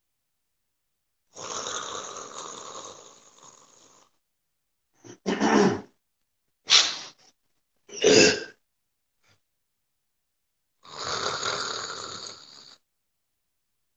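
A man making loud snoring sounds. There are two long breaths, one early and one near the end, and three short, louder bursts between them.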